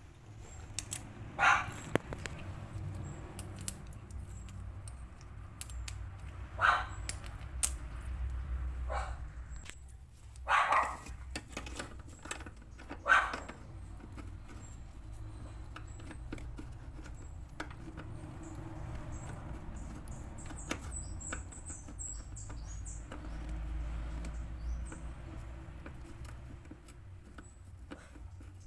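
A dog barking a few times, single barks spaced several seconds apart, over a low hum and scattered small clicks.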